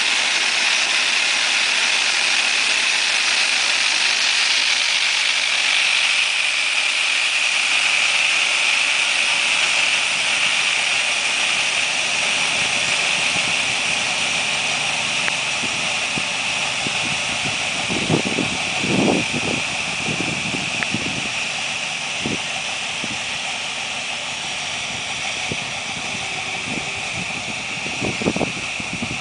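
Mini tractor engine running steadily while its mounted boom sprayer hisses out spray, easing slightly as the tractor moves away. A few short low rumbles break in during the second half.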